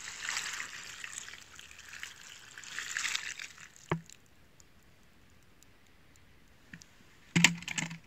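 Milk being poured onto a tree trunk, splashing and running down the bark with a hissing patter that fades out after about three and a half seconds. A single sharp knock follows about four seconds in, and a short louder sound comes near the end.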